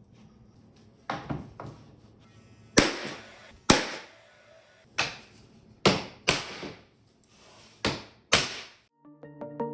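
About nine sharp knocks at uneven intervals, from nailing into wood framing while boxing in a ceiling beam. Background music comes in near the end.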